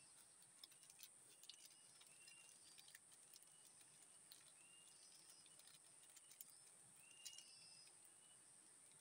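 Near-silent outdoor ambience: a steady high insect drone, a short bird chirp repeated about once a second, and a few scattered faint clicks.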